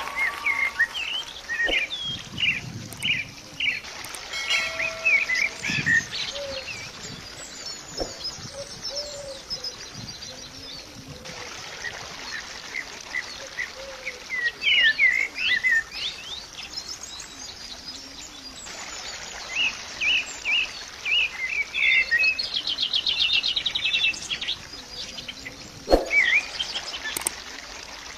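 Songbirds chirping and singing, many short varied calls with a rapid trill a little before the end and a few sharp clicks.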